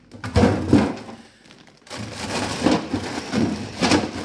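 Plastic bag of frozen peas rustling and crinkling, with frozen packets shifting against each other as it is pushed into a freezer drawer, in two spells of handling.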